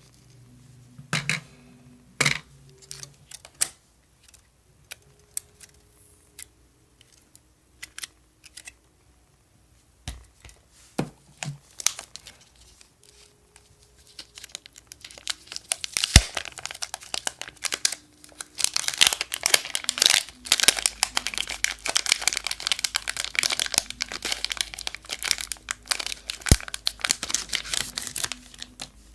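Hands-on crinkling and tearing noise: scattered clicks and taps at first, then from about halfway a long, dense stretch of crackling and tearing.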